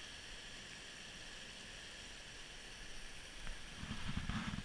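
Small woodland stream's water rushing steadily over a little drop. Low uneven thumps and rumble come in near the end.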